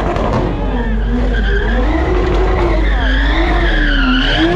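Toyota GR Supra doing donuts: the engine revs rise and fall over and over while the rear tyres skid and scrub on the asphalt.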